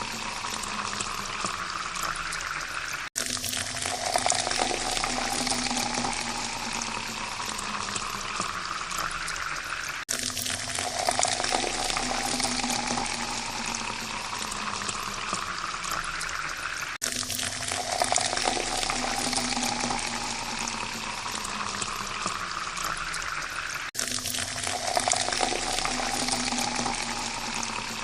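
Water pouring in a steady stream into a glass, its ringing tone rising in pitch as the glass fills. The pour restarts about every seven seconds after a brief break.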